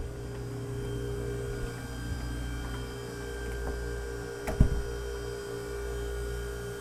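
Steady electrical hum with several held tones in a yacht's engine room, with one sharp knock about four and a half seconds in.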